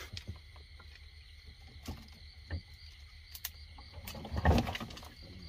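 Night insects, crickets among them, calling steadily, over scattered small clicks and knocks as branches are pushed aside from a boat. A louder rustling knock comes about four and a half seconds in.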